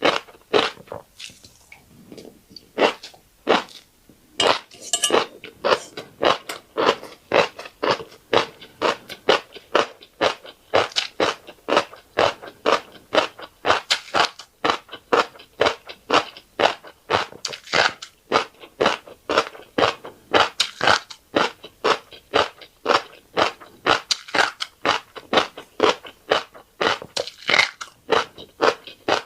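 Close-up chewing of a mouthful of fish roe and rice, with crisp crunching in a steady rhythm of about three chews a second. It is sparser and quieter for the first few seconds.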